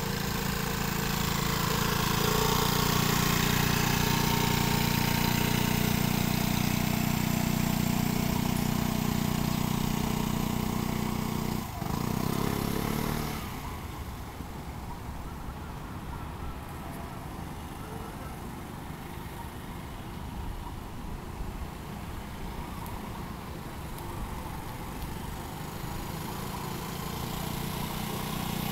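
Vespa Primavera scooter engine running steadily as the scooter is ridden at walking pace, held on the throttle against the rear brake. It is loud for the first dozen seconds, then fainter and farther off, and grows louder again near the end as the scooter comes closer.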